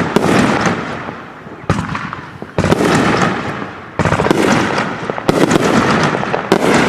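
Backyard consumer firework cakes firing: a sharp burst about every second, six in all, each trailing off into crackling that fades before the next.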